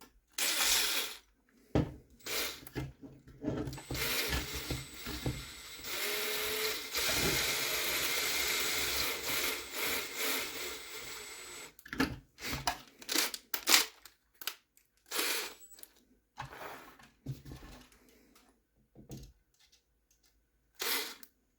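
Small M2 screws being driven to fasten a 3D-printed plastic body onto a 1/24-scale RC crawler frame. Scattered clicks and knocks of handling the plastic parts, with a steady whirring noise from about four to eleven seconds in.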